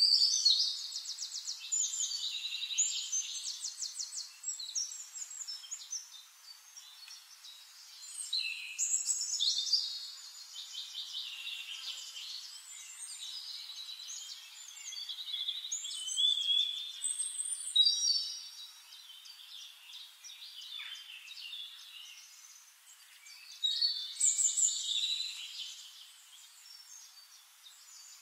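Birdsong: a songbird sings phrases of rapid trills and chirps, one about every eight seconds, with quieter chirping between them.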